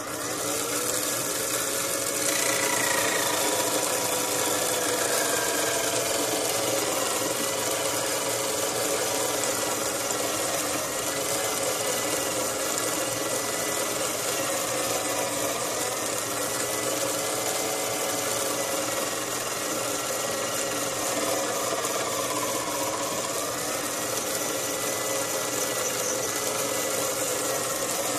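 Small motor-driven milling spindle starting up and running steadily while its rotary cutter cuts the leaves of a seven-leaf clock pinion. The whine comes up over about two seconds, then holds steady over a hiss, its pitch wavering slightly.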